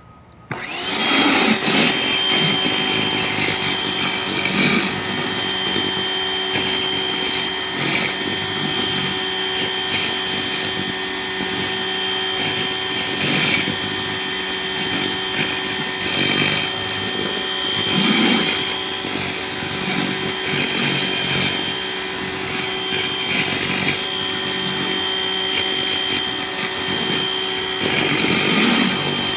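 Electric pressure washer (Greenworks 1800 psi) starting about half a second in and then running steadily with a high motor whine over a hiss, powering the 11-inch surface cleaner attachment.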